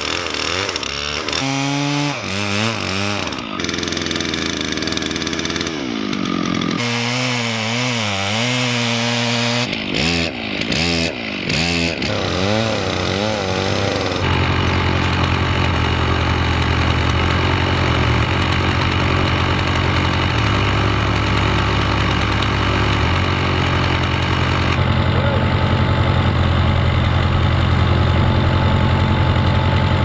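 Stihl chainsaw cutting through a log, its engine revving up and down with short drops in between, for roughly the first half. Then, after an abrupt change, a backhoe's engine runs steadily.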